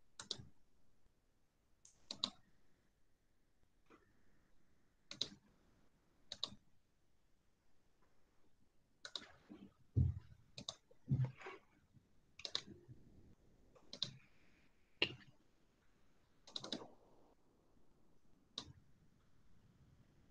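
Computer mouse clicks, scattered and irregular, some in quick pairs, with a few duller knocks among them.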